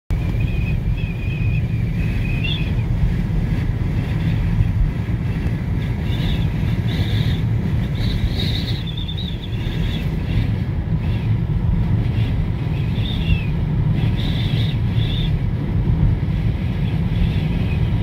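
Steady low rumble of a car driving on a snowy road, heard from inside the cabin, with faint high squeaks now and then.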